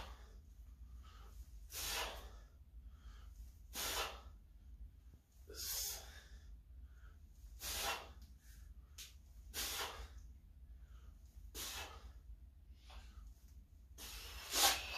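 A man breathing out hard in short, sharp breaths, one about every two seconds, each with a rep of weighted split squats, over a low steady hum.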